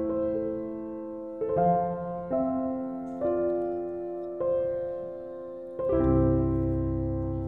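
Background piano music: slow, gentle notes, each struck and left to ring out, with a fuller low chord coming in about six seconds in.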